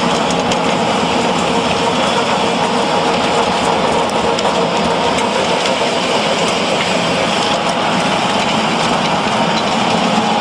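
Wood pellet production line machinery running: a loud, steady mechanical noise with a constant hum.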